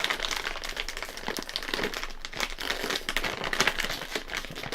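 Plastic snack bag crinkling as it is handled, a dense run of crackles.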